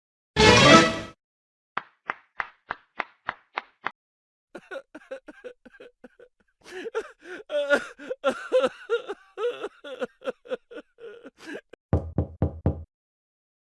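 A run of stock sound effects: a short cartoon transition sound, then about ten single hand claps at an even pace, then a person crying and sobbing for several seconds, and near the end a quick series of knocks on a door.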